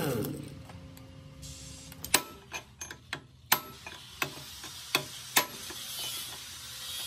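Pneumatic impact wrench spinning down with a falling whine right at the start. This is followed by a run of about eight irregular, sharp metal clanks and taps as a ribbed steel bar is worked inside the rusty gearbox housing.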